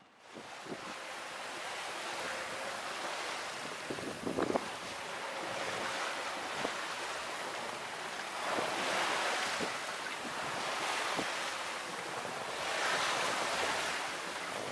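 Wind buffeting the microphone over the rush and splash of sea water past a sailing yacht's hull under way in a choppy sea. The noise swells and eases every few seconds.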